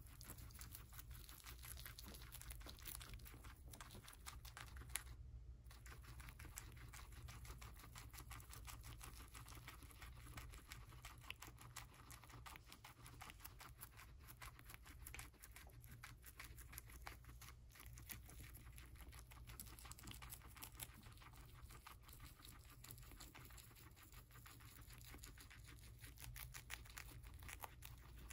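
Two guinea pigs chewing and tearing fresh celery stalks and leaves: quiet, rapid crisp crunching and snapping clicks, over a steady low hum.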